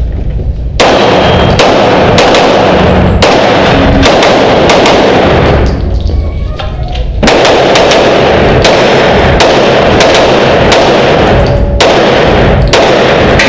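Pistol shots fired in quick succession, roughly one every two-thirds of a second, each ringing on in the echo of an indoor range. About six seconds in the firing pauses for a second or so, then the string picks up again.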